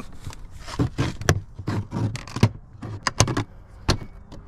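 A string of sharp clicks and knocks inside a pickup truck's cab, from working at the fuse panel while hunting for the blown fuse behind a dead 12-volt outlet.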